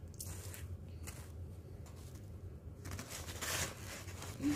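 Faint rustling and handling noise as plastic toy horse figures are moved about over paper, over a low steady hum.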